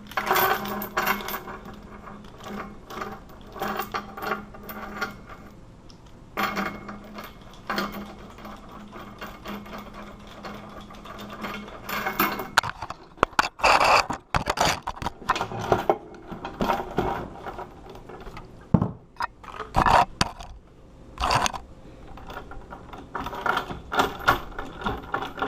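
Bolt cutters straining on the steel shackle of a disk padlock: irregular metal clicking, creaking and scraping, with louder sharp clacks from about halfway through.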